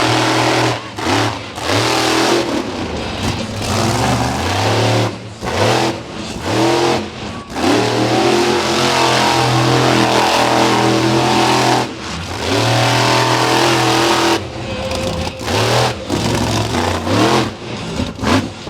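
Monster truck engine revving hard in repeated bursts, the pitch climbing and falling with short lifts off the throttle between them, and a longer stretch held at high revs in the middle.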